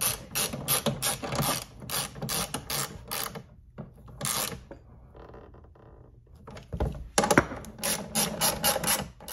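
Hand socket ratchet clicking in quick runs of strokes as 1/4-20 bolts are run into the threaded inserts of a Vintage Air evaporator housing, with a short pause about five seconds in.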